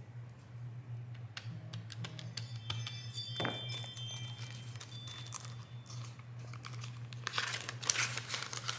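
Paper banknotes rustling as they are handled and counted, with the crinkle of a clear plastic binder envelope being opened and filled; the crackling gets busier and louder near the end.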